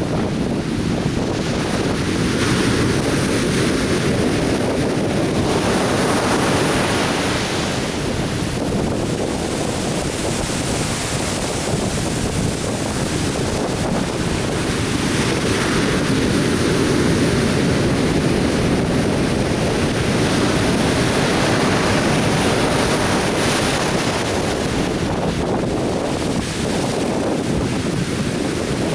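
Atlantic surf breaking on a beach: a continuous low rumble of waves with swells of hissing wash every few seconds, and wind buffeting the microphone.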